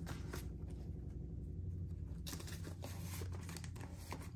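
Paper dollar bills rustling and crinkling as a stack of cash is handled and squared up, over the steady low hum of a washing machine running on the other side of a wall.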